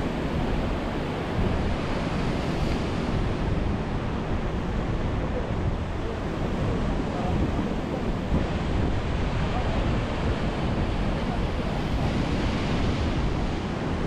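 Sea surf breaking and washing over a pebble shore against concrete tetrapods, the hiss swelling as each wave runs in every few seconds. Wind buffets the microphone with a steady low rumble underneath.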